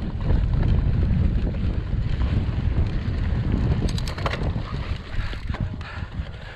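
Wind buffeting the microphone of a camera on a moving bicycle, a steady low rumble, with a few sharp clicks about four seconds in. The wind noise eases toward the end.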